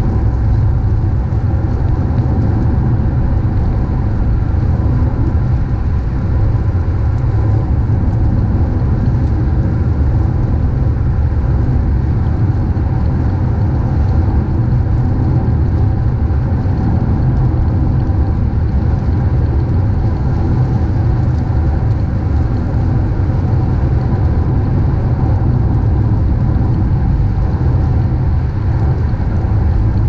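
Car driving on a wet road in the rain: a steady, loud low rumble of road and engine noise with a fainter hiss above it, unchanging throughout.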